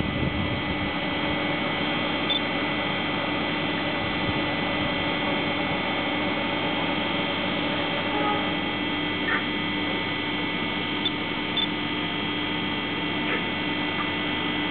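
Standing electric train's onboard equipment giving off a steady electrical hum with high whining tones, with a few faint ticks now and then.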